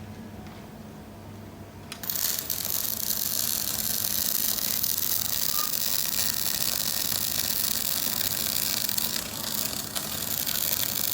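DAIHEN 350 A fuzzy MIG welder striking an arc about two seconds in and then welding steadily: a continuous loud sizzling hiss over a low hum.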